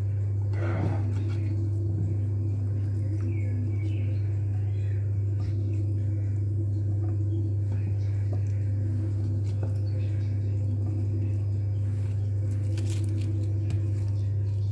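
A steady low hum throughout, over faint clicks and soft knocks as potato wedges and carrot sticks are set into a glass baking dish around raw chicken pieces.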